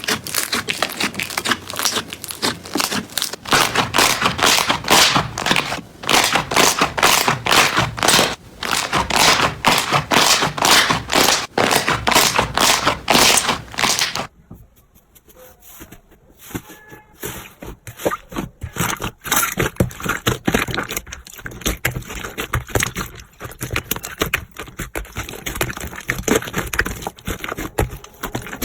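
Slime being squeezed and pressed by hand, giving a dense run of crackling, popping clicks, then a sudden cut about halfway through to quieter, sparser clicks and pops as another piece of slime is handled.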